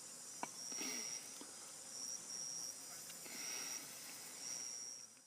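Insects trilling: a high-pitched trill that comes in repeated pulses of about half a second, over a faint background hiss, with one soft click about half a second in.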